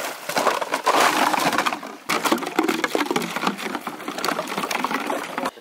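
Hollow plastic duck decoys clattering and knocking against one another, with water splashing around them; it cuts off suddenly near the end.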